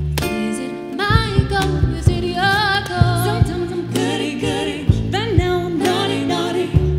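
Live acoustic band music: women singing, the voices wavering with vibrato, over a plucked upright double bass.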